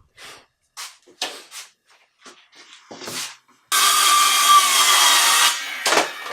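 A few light taps and knocks of wood being handled, then a power saw cutting through a board for about two seconds, stopping abruptly. A knock follows, with the saw's fading whine.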